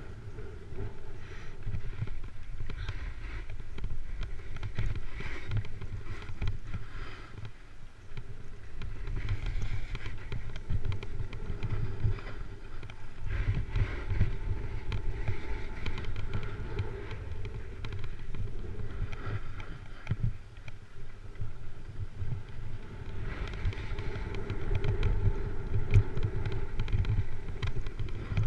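Snowboard riding down a groomed run: the board's edge scraping and hissing over the snow in swells that come and go with the turns, over a low wind rumble on the microphone.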